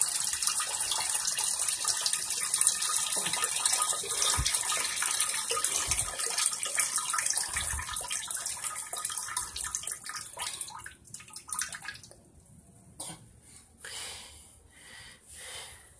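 A urine stream splashing into a toilet bowl's water, a steady splashing hiss that weakens and fades out about ten to twelve seconds in. A few short bursts of noise follow near the end.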